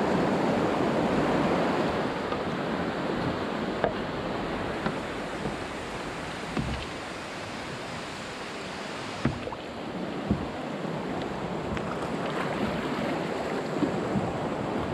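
Fast river water rushing around an open canoe running rapids, with a few short, sharp knocks. The rush is loudest at the start and eases about halfway through.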